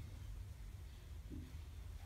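Quiet workshop room tone with a faint low rumble; the lathe is not yet running.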